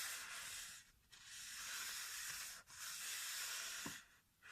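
Paper being rubbed in three long, hissy strokes, each a second or more, with short pauses between them.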